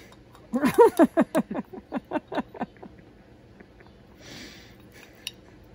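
A person's voice in a quick run of short pulses lasting about two seconds, followed after four seconds in by a brief soft rustle.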